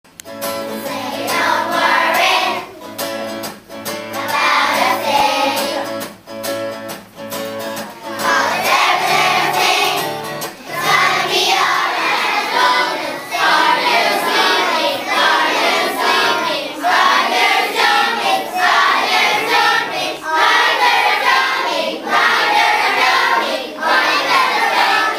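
A choir of young children singing a song together, in phrases of a few seconds each.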